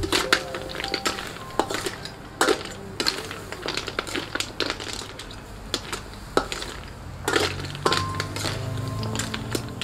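Metal ladle scraping and clinking against a steel wok while snails in their shells are stir-fried with water spinach; the shells clatter against the pan in irregular knocks.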